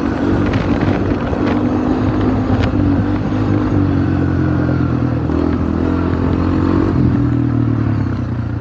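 An ATV engine running steadily at speed, heard from on board, its note dipping and rising a little as the throttle changes, with a few light knocks as it rides over rough ground.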